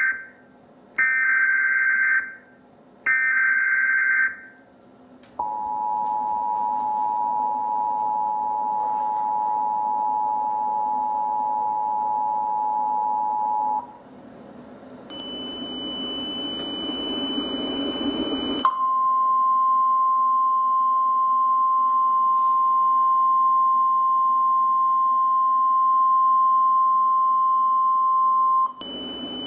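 Emergency Alert System tornado emergency alert tones. First come short screeching bursts of digital header data, then the two-tone attention signal for about eight seconds. After a brief higher-pitched multi-tone sound, a single steady warning tone holds for about ten seconds.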